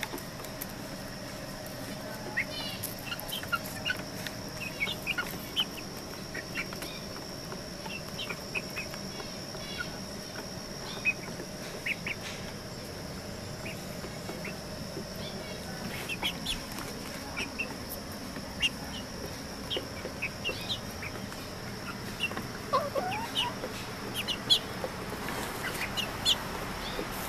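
Young chickens peeping and chirping in short, scattered high calls while they peck at feed, with a thin steady high whine in the background.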